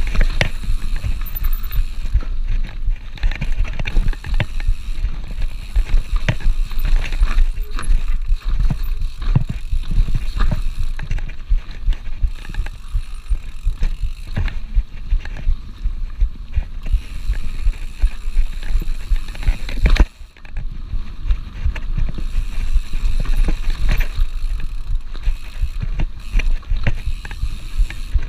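Mountain bike riding fast down a dirt forest singletrack, heard through a body-mounted action camera: a constant low buffeting of wind on the microphone, tyres rolling over dirt and roots, and frequent rattles and clacks from the bike. The sound dips out for a moment about twenty seconds in.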